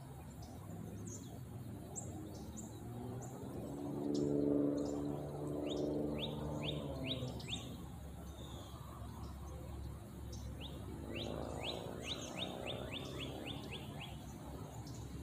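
Songbirds chirping: a high note repeats about every half second, and runs of quick falling chirps come twice, about six and twelve seconds in. A low hum swells and fades about four to five seconds in, over steady outdoor background noise.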